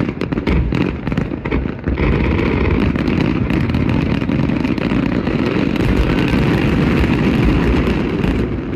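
Fireworks display: a quick run of sharp bangs and crackles, then from about two seconds in a dense barrage of aerial shell bursts that merges into one continuous rumble, easing slightly near the end.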